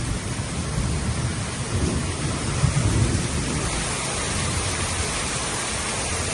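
Heavy rain pouring down in a strong windstorm, with a constant hiss of rain over a gusting low rumble. It cuts off abruptly at the very end.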